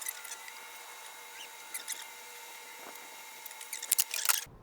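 Small clicks, scrapes and rattles of a disassembled string trimmer being handled and turned over, with a quick run of louder clicks near the end, over a faint steady hum.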